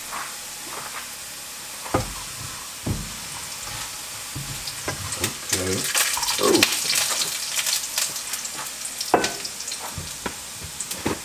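Diced hash brown potatoes sizzling in hot grease in a frying pan: a steady hiss with crackling that picks up in the middle. A few sharp knocks and clicks come through as the pan and potatoes are handled and stirred.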